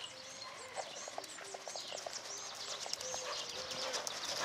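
Wild birds singing, many quick high chirps and trills, with soft, scattered hoofbeats of a horse moving over arena sand.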